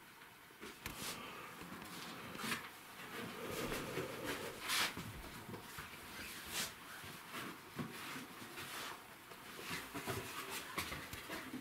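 Handling sounds in a small room: scattered light knocks, clicks and rustles, with the sharpest knocks a little under five seconds in and at about six and a half.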